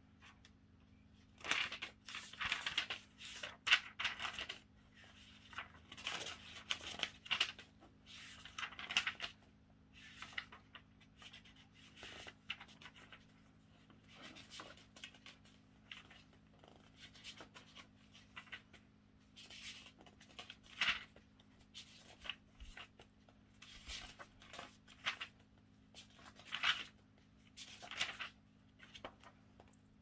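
Paper pages of a thin instruction booklet being turned and handled, a run of rustling bursts in the first ten seconds, then scattered shorter rustles. A faint steady low hum runs underneath.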